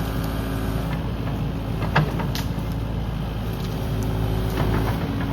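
Kubota KX080 mini-excavator's diesel engine running steadily, with a single sharp crack or knock about two seconds in and a few fainter clicks later.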